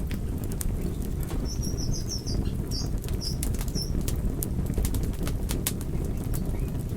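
Wood fire crackling and popping: sharp irregular snaps over a steady low rumble of burning logs. A short run of high chirps sounds between about one and a half and four seconds in.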